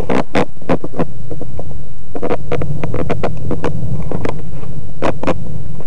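R/C model T-28D Trojan in flight, heard from its onboard camera: a steady low drone from the motor and propeller under loud, irregular buffeting of wind on the microphone.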